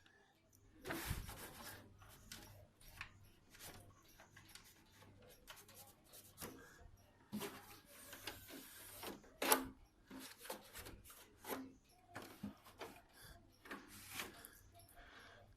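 A cloth wiping and rubbing over the plastic housing of a split air-conditioner unit, with irregular light knocks and clicks and one sharper knock a little past halfway.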